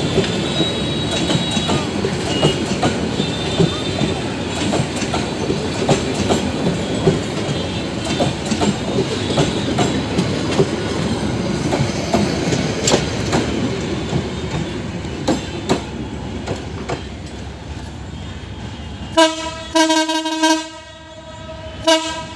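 A train running by on the rails: a steady rumble with rapid clicking of wheels over rail joints, slowly dying away. Near the end a locomotive's air horn sounds in a few short, loud blasts.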